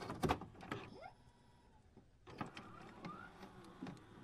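Quiet digital glitch sound effects: scattered sharp clicks and crackles with a short pitch sweep about a second in, a gap of near silence, then softer clicks and a brief rising tone near the end.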